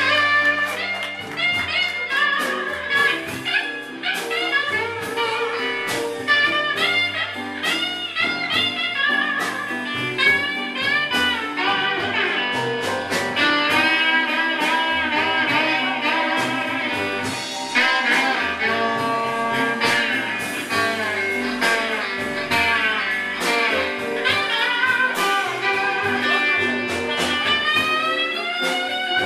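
Live music from a guitar and an upright double bass: guitar lines with bent notes over a walking low bass.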